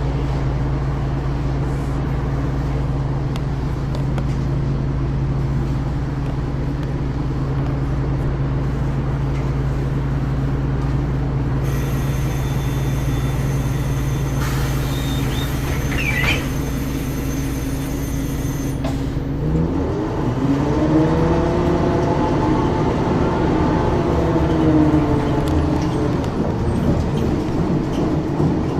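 Ikarus 435 bus's diesel engine idling steadily, with a hissing sound for several seconds in the middle; about two thirds through, the engine revs up as the bus pulls away, its pitch rising, dropping at a shift of the ZF automatic gearbox and rising again.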